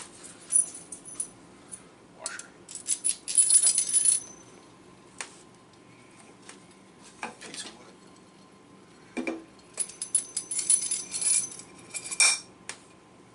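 Light metal clinks and rattles in scattered short bursts, busiest about three to four seconds in and again around ten to eleven seconds. They come from a wing nut and hardware being handled and run onto a long threaded steel rod.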